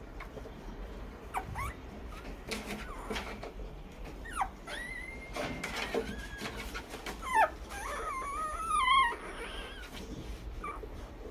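Newborn Labrador puppy squeaking and whimpering: a string of short high calls, some held and wavering, the loudest about eight to nine seconds in.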